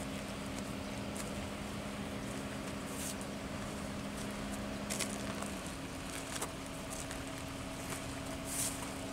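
A steady mechanical hum over a background of noise, with a few short, light clicks. One of the hum's tones drops out about five and a half seconds in.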